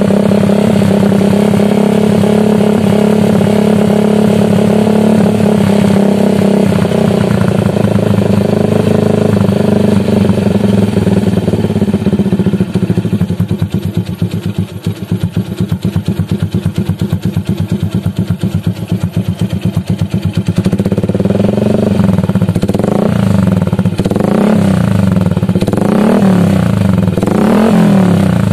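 Yamaha Jupiter MX single-cylinder four-stroke engine running through a 30 cm DOS aftermarket racing muffler. It holds a steady, raised speed, drops to a pulsing idle about halfway through, then is revved in a string of quick throttle blips near the end. The exhaust note is fairly mellow and not too noisy.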